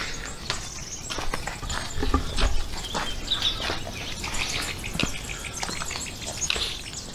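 Footsteps on a stony trail: irregular crunches and clicks, with a brief low rumble about two seconds in.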